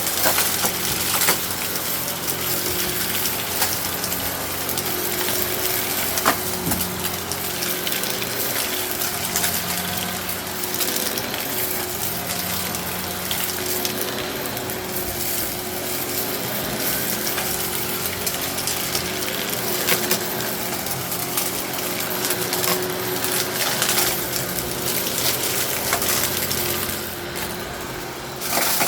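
Eureka Innova upright vacuum running with its brushroll spinning, sucking up aquarium gravel that rattles and clicks as the small stones are pulled through. The level dips briefly near the end.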